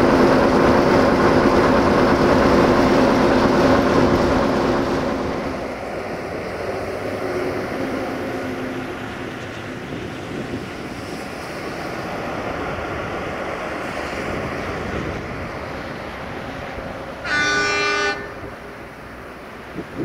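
Sulzer twelve-cylinder diesel engine of a class 060-DA (Electroputere LDE2100) locomotive running loud and steady close by, a low hum of several tones, falling away after about five seconds to a quieter rumble. Near the end the locomotive's horn sounds once, a short blast of under a second.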